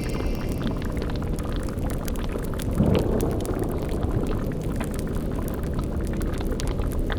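A cauldron boiling with a steady low bubbling, mixed with the short crackles of a fire, and a brief louder surge about three seconds in.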